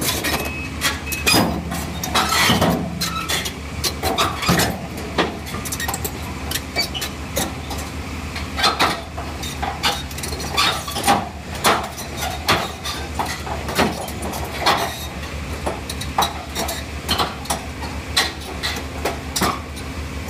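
Case CX160C excavator's diesel engine running steadily under irregular metallic clanks and bangs, steel against steel, as the machine climbs a ramp into a steel gondola railcar. The clanks come every second or so, some much louder than others.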